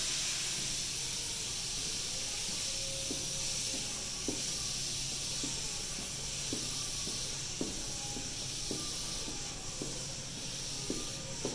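Rubber-tyred Sapporo subway train rolling slowly along the platform, heard as a steady high hiss with a soft, regular knock about once a second from about three seconds in.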